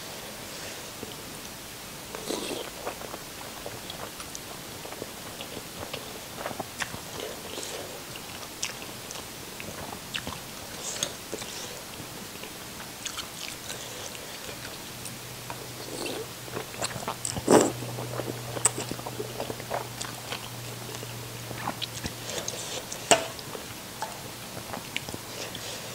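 Close-miked chewing and wet mouth sounds of a person eating noodle soup, with soft smacks and scattered clicks; the two sharpest clicks come about two-thirds of the way through and near the end. A low steady hum sets in about halfway and stops a few seconds before the end.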